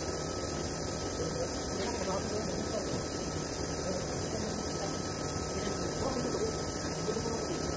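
Steady hum and hiss of workshop background noise, with a thin constant tone and no distinct tool strikes.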